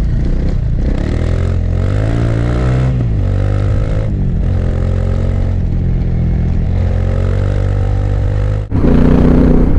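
Off-road motorcycles (a Yamaha Ténéré 700 and a Honda CRF300L) riding past on a gravel track, engine pitch rising as one accelerates and then dropping about three seconds in, then running steadily. Near the end the sound cuts sharply to a louder on-board engine sound.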